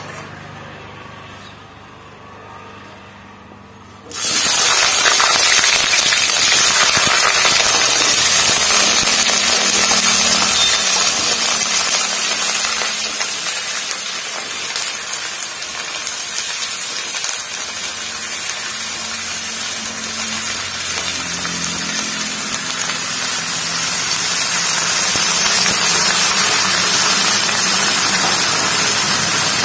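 Raw jackfruit and potato pieces go into hot mustard oil in a kadhai and sizzle loudly. The sizzle starts suddenly about four seconds in, then runs on steadily, easing a little midway and growing louder again near the end.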